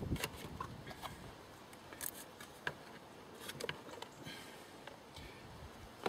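Scattered light clicks and scrapes of a round paper air filter element being pushed and turned by hand in its plastic housing, which it is not seating in properly.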